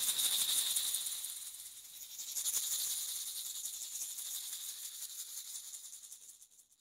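Hand rattle shaken in two long swells, a dense, grainy, high hiss that rises and fades away. The second swell starts about two seconds in and dies down near the end.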